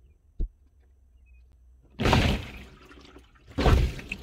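Car windscreen washer spraying the windscreen and the wipers sweeping the water across, heard from inside the cabin: two washes about a second and a half apart, the first about two seconds in. A short knock comes just before.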